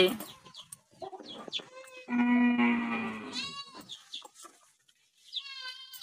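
Farm animals calling: one long, low, steady call about two seconds in, then two short, high, wavering calls, one just after it and one near the end.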